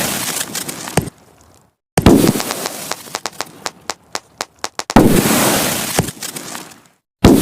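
Consumer fireworks battery firing shot after shot. A sharp bang comes about a second in, then loud bursts at about two and five seconds, each trailing off in a crackle that fades over a couple of seconds, and another burst comes near the end.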